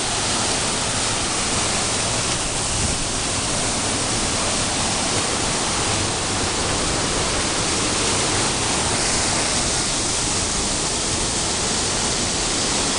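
Steady rush of falling water from a waterfall or fountain, an even hiss with no breaks.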